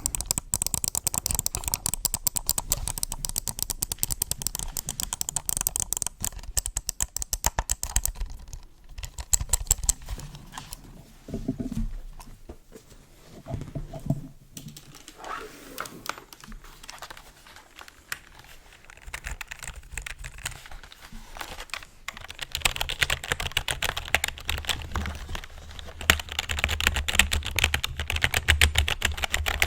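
Computer keyboard keys and mouse buttons clicking in quick, dense runs. The clicking thins out for a stretch in the middle and picks up again about three quarters of the way through.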